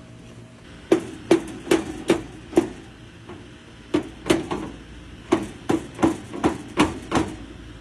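Rubber mallet striking repeatedly, each knock ringing briefly: a dozen or so blows at about two to three a second, in two runs with a pause of about a second and a half between them.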